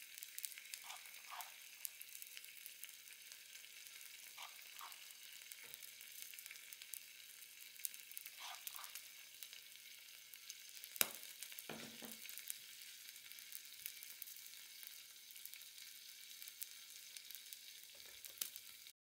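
Faint sizzle of food frying in a pan, a steady high hiss full of tiny crackles, with a few soft taps and one sharp click about eleven seconds in.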